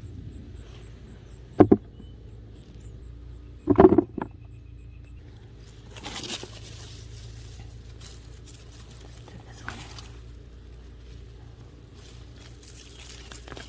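Digging in garden soil to lift potatoes: a short thud, then a louder cluster of knocks a couple of seconds later, followed by softer scraping and rustling of earth. A low steady hum runs underneath.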